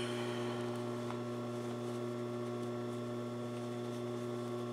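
Steady electrical hum: a low, unchanging drone made of several fixed tones, with nothing else standing out above it.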